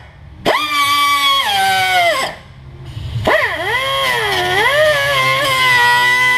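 Pneumatic cut-off tool with a small abrasive wheel spinning at high pitch and cutting metal, its whine sagging and wavering as the wheel bites. It is let off twice, right at the start and about two and a half seconds in, then spun back up.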